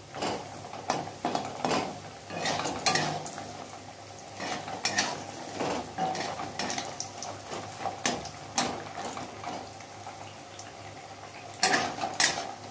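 A flat spatula scraping and knocking irregularly against a kadhai while bori (sun-dried lentil dumplings) fry in hot mustard oil with a sizzle. The strokes come thick and uneven, with a louder cluster near the end.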